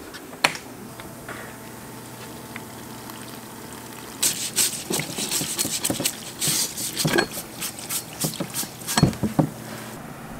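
A SmartWasher parts washer is switched on with a click and its pump hums faintly. About four seconds in, cleaning fluid streams from the nozzle and splashes irregularly as a wooden knife handle scale is washed under it. The splashing stops shortly before the end.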